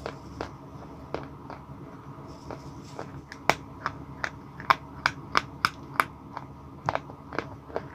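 Sticks of white chalk bitten and chewed close to the microphone: a series of sharp, dry crunches. They come a few at a time at first, then quickly one after another from about halfway through.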